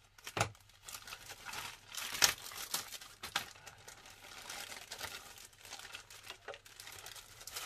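Clear plastic bag crinkling and rustling as it is opened and a plastic model kit sprue is pulled out of it, with a sharper crackle about two seconds in.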